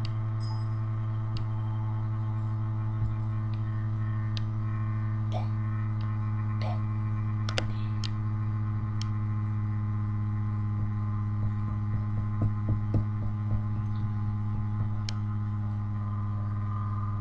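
Steady electrical hum with a buzzy edge, from the recording setup. A few scattered light clicks and soft knocks sit over it, most of them bunched about twelve to fourteen seconds in.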